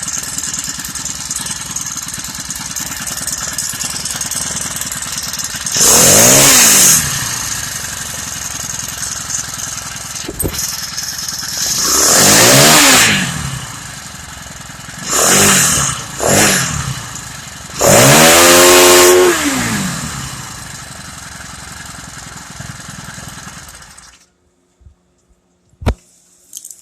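Honda GXH50 49cc four-stroke engine, unrestricted, running at a steady idle and revved up five times, each rev rising in pitch and falling back; the engine shuts off near the end.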